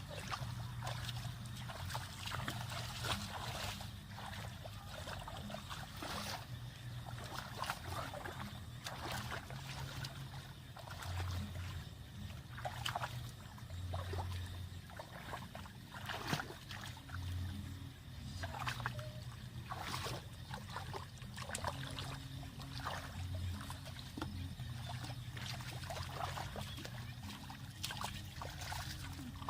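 Water trickling and splashing in irregular small bursts, over a low steady hum.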